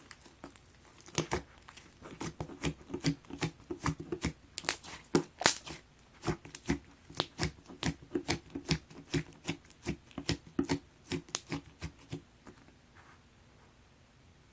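Light-green pearl slime squished and pressed by hand, making a quick run of sharp sticky clicks and pops, about three a second, that stops shortly before the end.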